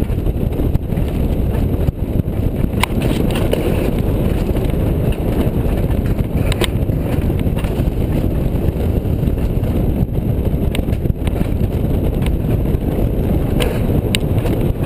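Alpine coaster sled rolling fast down its tubular steel track, with a steady rumble of its wheels on the rail mixed with wind on the microphone. A few sharp clicks come through, around three seconds in, midway and near the end.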